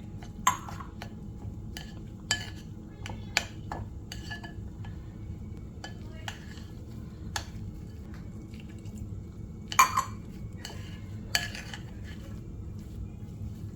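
A utensil stirring a soft almond flour and psyllium husk dough in a mixing bowl, with irregular clinks and knocks against the bowl. The loudest is a quick double knock near the end.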